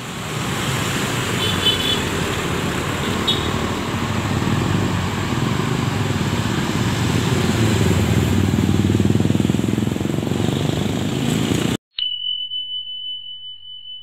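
Mercedes-Benz intercity bus pulling away, its diesel engine running with a steady rumble that rises gradually in level, and two short high chirps about one and a half and three seconds in. The sound cuts off abruptly near the end, and a single held high electronic tone follows, fading out.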